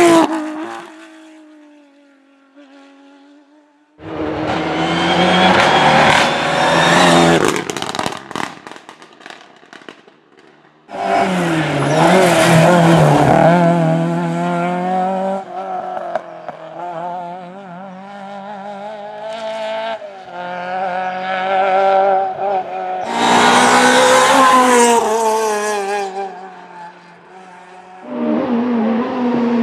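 Rally cars at speed on a tarmac stage, one after another in abruptly cut clips, with engine pitch rising and falling through gear changes. At the start a Porsche 911 pulls away, its note falling and fading. A Mk1 Volkswagen Golf is one of the cars that follows.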